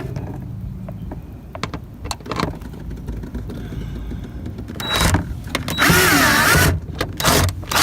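A small electric motor whirs for about a second near the end, its pitch wavering, with scattered clicks and knocks before and after.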